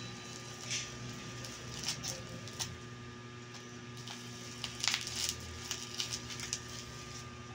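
Plastic bubble wrap crinkling and crackling in short, irregular bursts as it is handled and pulled open, loudest about five seconds in, over a steady electrical hum.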